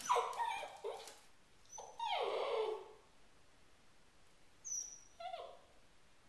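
Chocolate Labrador puppy whining and yelping in short cries that slide down in pitch: a cluster at the start, a longer cry about two seconds in and a brief one near the five-second mark. The puppy is reacting to her own reflection in a mirror.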